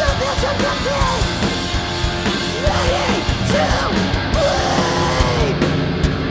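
Hardcore punk band playing live: electric guitar, bass guitar and drums, with a woman singing into a microphone until shortly before the end.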